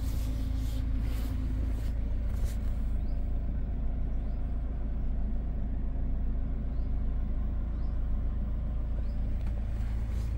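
Peugeot 508 RXH's 2.0 BlueHDi diesel engine idling, a steady low hum heard inside the car's cabin. A few light clicks come in the first three seconds.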